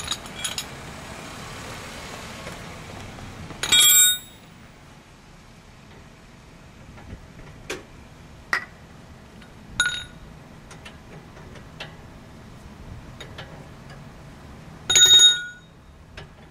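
Hand tools and a metal spray can clinking against a metal manhole cover, each clink ringing briefly. The two loudest come about four seconds in and near the end, with a smaller one around ten seconds and a few light ticks and taps between.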